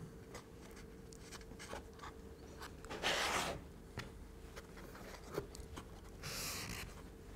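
Quiet hands-on handling of MDF kit parts on a cutting mat: light taps and clicks, with two short scratchy rubbing sounds, about three seconds in and again near the end, as a cloth is dragged and wiped along a freshly glued joint.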